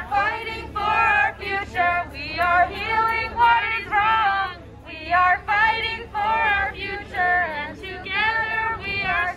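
A woman singing a protest song through a handheld megaphone, in short held phrases with brief gaps between them.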